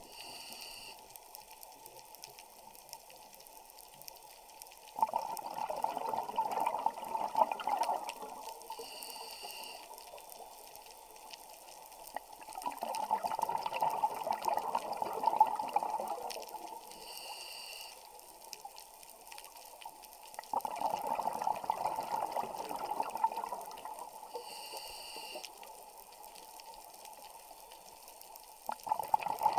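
Scuba diver breathing through a regulator underwater: exhaled bubbles rush out in bursts of about three seconds, four times, roughly every eight seconds, with a faint high hiss of the inhale in the gaps between them.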